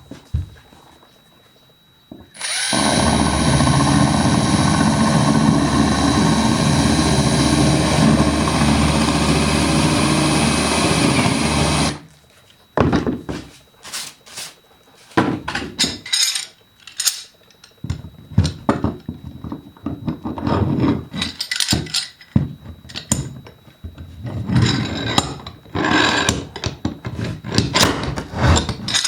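Electric drill turning a nail-head trimmer cutter into wood to expose the head of a nail sunk below the surface. It runs steadily for about ten seconds, then goes in many short stop-start bursts.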